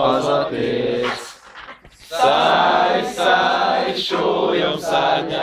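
A group of young men singing a cappella, with a short break between lines about a second in before the singing picks up again.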